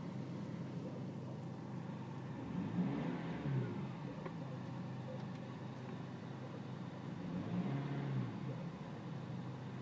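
BMW E46 320Cd's four-cylinder common-rail diesel idling, with its engine speed swelling up and settling back twice: the rough, uneven idle the owner is chasing.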